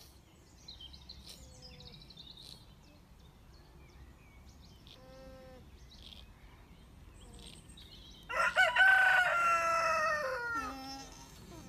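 A rooster crows once about eight seconds in, loud, its long last note held and then dropping in pitch. Before it there are only a few faint short animal calls and high bird chirps.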